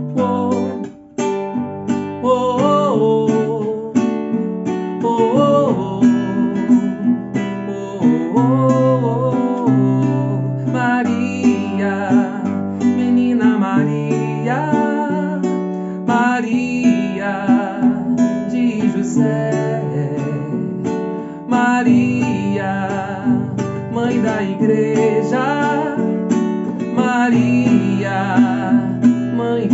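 Music: a man singing, accompanying himself on a strummed acoustic guitar.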